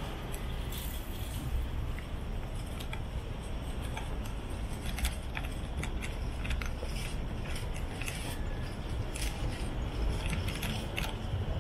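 Street ambience on a walk: a steady low rumble, with many light, jingling clicks scattered throughout.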